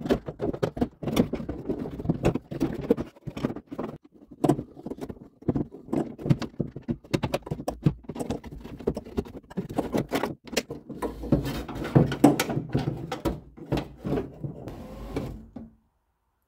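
Hands fitting a door lock actuator into a BMW E46 door shell: a busy run of plastic and metal clicks and knocks, with the wiring harness rustling between them.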